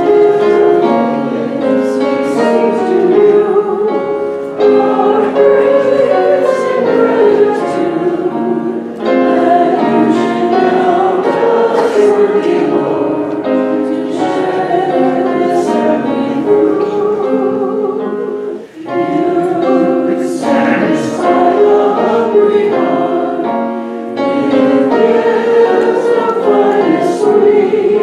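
Congregation singing a hymn together in unison with accompaniment: sustained sung lines with a brief breath pause between phrases about two-thirds of the way through.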